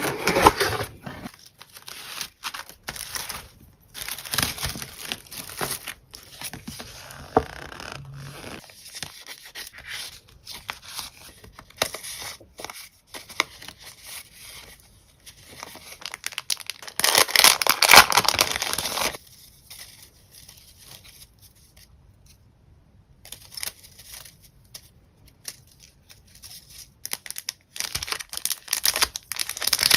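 Packaging being torn open and crinkled by hand: irregular rustling and tearing, with a longer, louder tear a little past halfway and a quieter stretch a few seconds after it.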